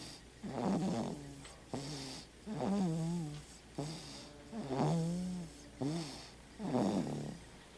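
A sleeping baby snoring: four snores about two seconds apart, each with a pitched, wavering tone, with softer breaths between them.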